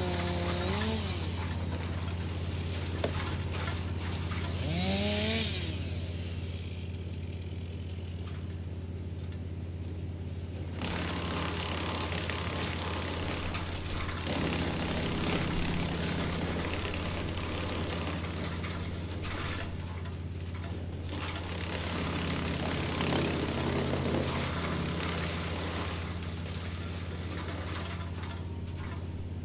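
Wood chipper running with a steady engine hum, chewing through wood in long grinding stretches that come and go. The engine pitch swings and rises sharply around five seconds in as it takes a load.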